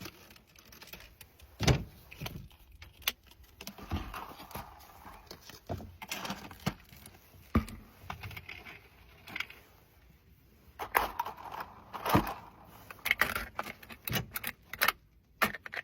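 Irregular clinks, knocks and rattling of drinks being handled, with a few sharp knocks and busier clattering in the second half.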